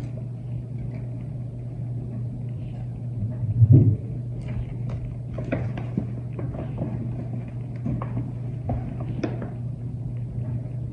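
Light rustling and small clicks of baby clothes and their packaging being handled, over a steady low hum, with one louder low thump about four seconds in.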